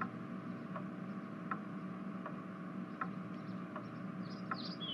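Faint, even ticking like a clock, about one tick every three-quarters of a second, over a low steady hum. A few faint high chirps come near the end.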